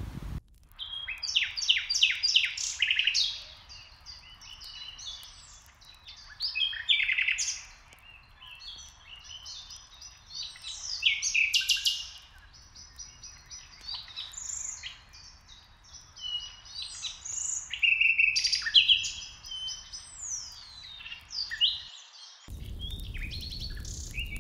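Songbirds singing: a dense run of varied chirping and whistled phrases that cuts off abruptly near the end, giving way to a steady rushing noise.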